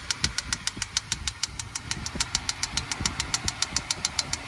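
2008 Range Rover Sport 4.4-litre V8 idling with a new water pump fitted, under a rapid, even ticking of about eight ticks a second.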